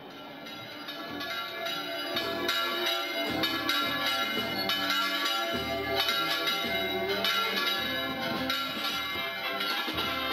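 Church bells ringing in a rapid, festive peal of many overlapping strikes, each one ringing on. The sound builds up over the first couple of seconds.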